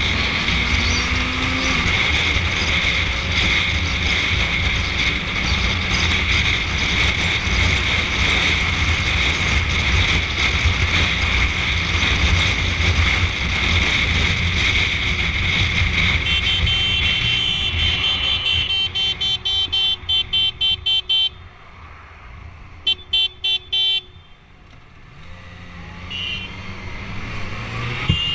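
Motorcycle riding at road speed, heard from a helmet camera: steady engine and wind noise on the microphone. About two-thirds of the way through the noise eases as the bike slows, and a rapid run of short high beeps sounds, several a second, stopping and returning briefly a couple of seconds later.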